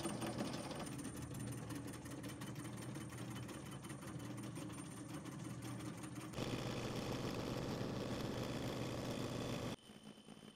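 Homemade Gingery metal lathe running under belt drive while turning a cast aluminium pulley blank, with a rapid even ticking. About six seconds in it becomes louder and steadier, then it drops off suddenly near the end.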